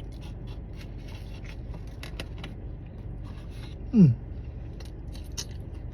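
Eating noises, scattered small clicks and crinkles of chewing and handling a paper-wrapped chicken Big Mac. A short loud sound sliding down in pitch comes about four seconds in.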